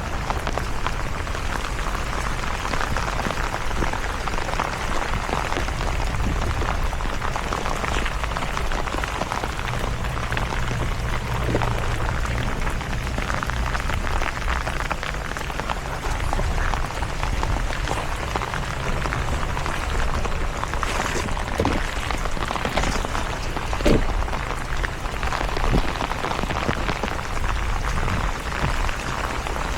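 Steady rain falling, with a few scattered clicks and knocks, the loudest about 24 seconds in.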